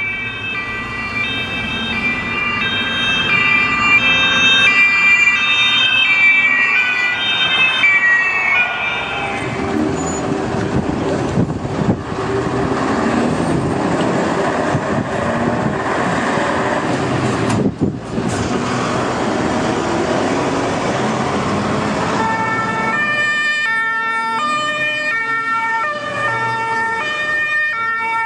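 German police two-tone sirens (Martinshorn) on a convoy, several overlapping as they alternate between two notes. For about the middle half the sirens give way to the engine and road noise of heavy police trucks passing. Near the end a two-tone siren alternating steadily takes over again.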